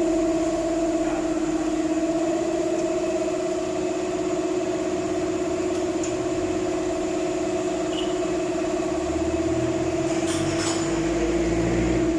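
Honda Dio scooter's small single-cylinder engine idling steadily after a service, with an even, unchanging hum.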